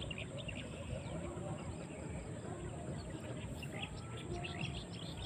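Small birds chirping repeatedly, many short high chirps, over a steady low background noise.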